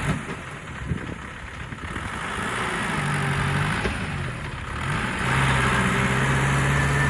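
Heavy diesel engine of earthmoving equipment running and working up under load. Its note strengthens briefly about three seconds in, then rises again from about five seconds and holds steady and louder.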